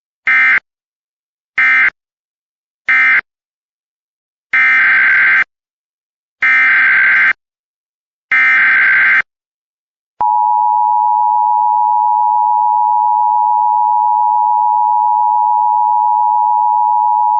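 Emergency Alert System tones. First come three short SAME data bursts, the end-of-message code closing one alert, then three longer SAME header bursts of about a second each opening the next alert. From about ten seconds in, the steady two-tone EAS attention signal (853 and 960 Hz together) sounds without a break.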